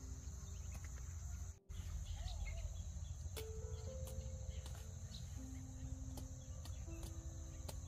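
Steady high-pitched chirring of insects such as crickets over soft background music of slow, held notes that step up and down in pitch, with a low rumble underneath. The sound drops out briefly about one and a half seconds in.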